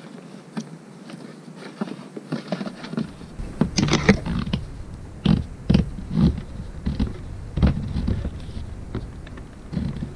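Electrical wires and a corrugated plastic wire loom being pulled through a drilled hole in a plywood cabinet panel: irregular scraping, rustling and clicking, louder from about three seconds in.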